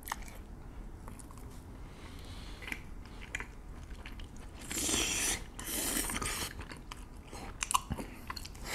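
Chewing and biting into Korean fried cheese balls and rice cakes coated in creamy rosé tteokbokki sauce. Small scattered clicks run throughout, with two louder, longer stretches of noise about five and six seconds in.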